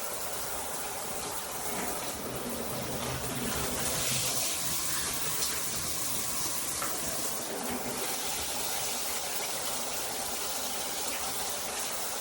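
Water spraying steadily from a HammerHead all-metal shower head.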